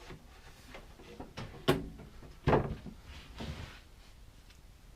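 A plywood top being handled and set onto a work table, giving a few wooden knocks and thuds: a sharp knock about a second and a half in, a heavier thud about a second later, and a softer one after that.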